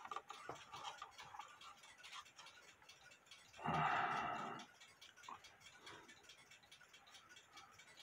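A clock ticking faintly and steadily, with handling noise as the empty wooden cuckoo clock case is turned over and a brief rustling scrape about four seconds in.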